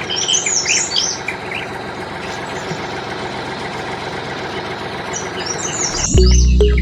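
Birds chirping over a steady noisy hum, with background music starting about six seconds in.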